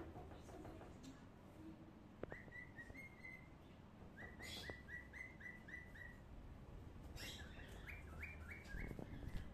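A bird chirping in three quick runs of short rising notes, about five a second, the first starting about two seconds in.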